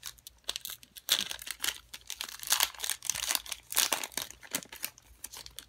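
Foil wrapper of a 2013 Prizm football card pack being torn open and crinkled in the hands: irregular crackling, heaviest in the middle and thinning out near the end.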